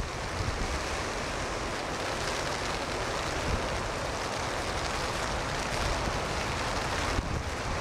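A steady rushing hiss of storm wind, rain and surf, with wind buffeting the microphone near the end.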